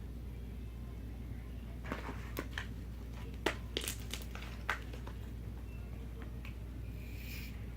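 Slime being squished and worked by hand: a run of small sticky clicks and pops for about three seconds, then a short hiss near the end.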